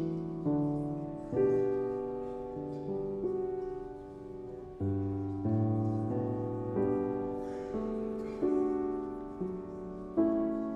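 Slow piano music: chords struck about once a second, each dying away before the next.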